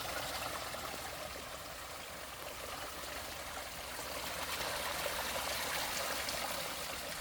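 Small stream running steadily, an even flow of water.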